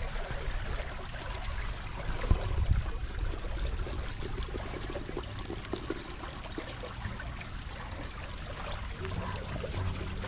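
Water trickling steadily in a flooded rice-paddy ditch, with a few faint clicks.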